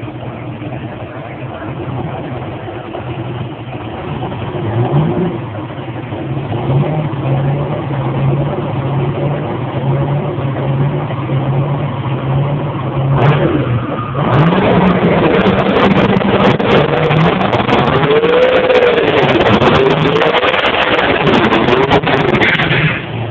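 Drag racing car's engine holding steady revs with a pulsing note. About 13 seconds in it revs hard into a burnout: a loud mix of high engine revs rising and falling, spinning rear tyres and crackles. It cuts back sharply near the end.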